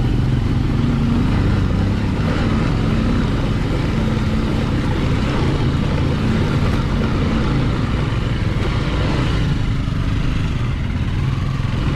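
Motorcycle engine running steadily on the move, with a constant hiss over it.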